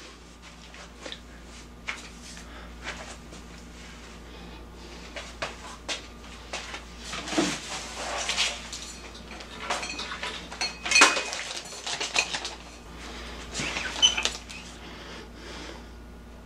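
Kitchen handling noises: irregular clicks and knocks, with louder clattering of cupboard doors and dishes around 7–8 seconds, 11 seconds and 14 seconds, over a faint steady hum.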